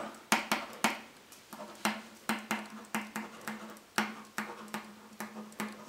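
Pen writing on a sheet of paper laid on a wooden table: a string of irregular light taps and scratches, about two a second, over a faint steady hum.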